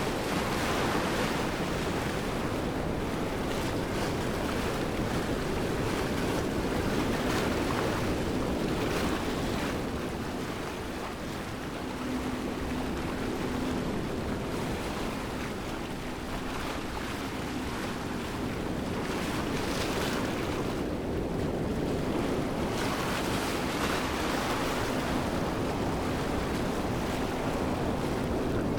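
Waterfall: a steady rush of falling water that swells and eases gently in level.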